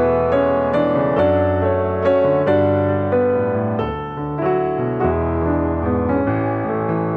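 Background piano music, a gentle melody over a steady bass line.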